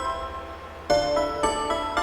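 Gentle background music: bright keyboard notes struck every half second or so, each ringing out and fading.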